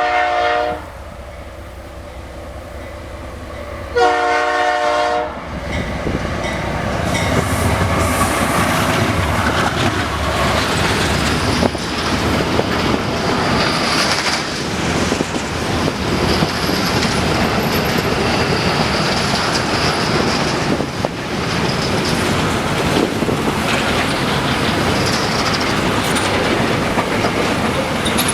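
Diesel freight train on the Ferrovia Norte-Sul: the locomotive horn blows, ending about a second in, then gives a second short blast around four seconds in. The train then passes close by, its wagons rumbling and clattering over the rails with faint wheel squeal.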